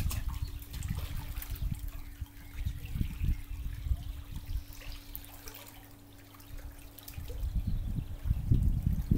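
Gentle splashing and trickling of swimming-pool water as legs move in it and a swimmer paddles close by, with irregular low rumbling bumps that die down about halfway through.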